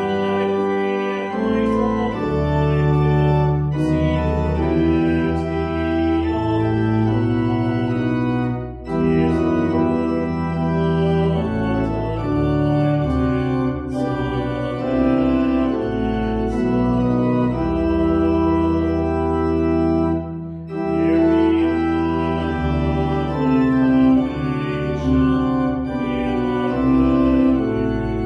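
Organ playing slow, held chords that change every couple of seconds, with two brief breaks between phrases, about nine and twenty-one seconds in.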